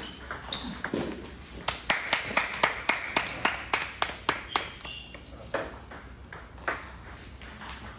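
Table tennis ball: a sharp hit right at the start, then a run of quick, evenly spaced ball bounces, about four a second for some three seconds, and a few scattered clicks after.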